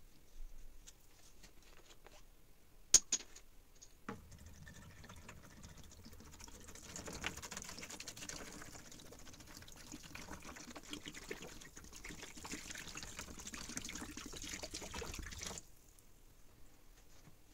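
Liquid poured in a steady stream into a plastic tub over a rusty meat cleaver, splashing as the tub fills, for a rust-removal soak; the pouring stops suddenly near the end. Before it starts, a single sharp click about three seconds in is the loudest sound, with a smaller knock a second later.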